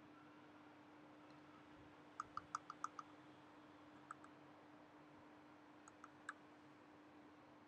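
Logitech M720 Triathlon wireless mouse clicking in a sound test of its buttons: a quick run of about seven sharp clicks a couple of seconds in, two more around the middle, and three more near the end.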